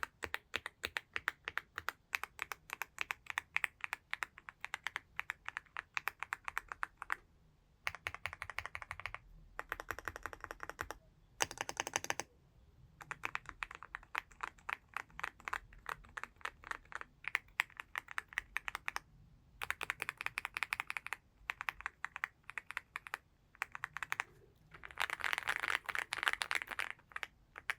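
Typing on a Leobog Hi75C Pro aluminium mechanical keyboard fitted with frosted translucent MOA-profile keycaps: rapid key clacks in runs of one to a few seconds, broken by short pauses, with the fastest run near the end.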